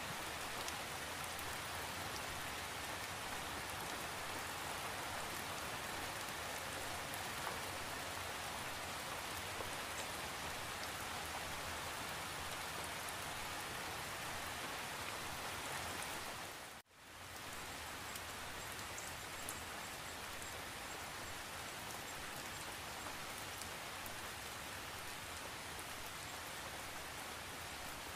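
Steady rain falling, a dense even hiss. About two-thirds of the way through it cuts out abruptly for a moment and swells back within a second, a little quieter than before.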